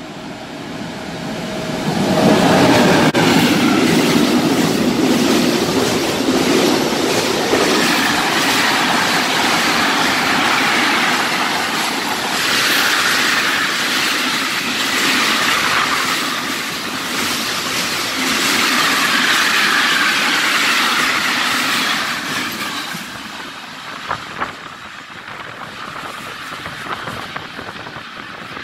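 Electric freight train with an E.474 locomotive hauling container wagons passes through the station. Its noise swells sharply about two seconds in as the locomotive goes by, then the wagons run past with a long steady rumble and rattle of wheels on rail that rises and falls. It fades about 23 seconds in, with a few sharp clicks after.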